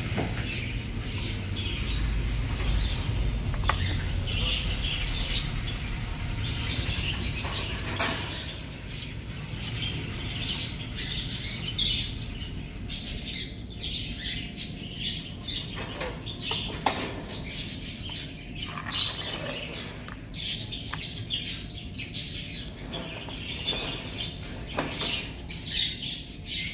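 Small pet cage birds chirping and twittering in many short, quick calls, with a low rumble during the first several seconds.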